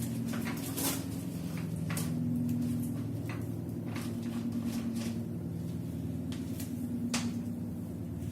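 Scattered clicks, knocks and rustles of food and packaging being handled on a kitchen counter, over a steady low hum.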